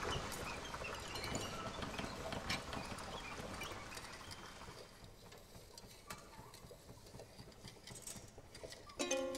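Free-improvised percussion: a dense scatter of small clicks, taps and rattles that thins out and fades over about five seconds. Near the end a plucked string note starts ringing with clear overtones.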